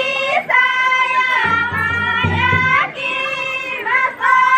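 Adivasi folk dance song with a high-pitched sung melody of long held notes that slide at their ends. Deep low beats come in briefly in the middle.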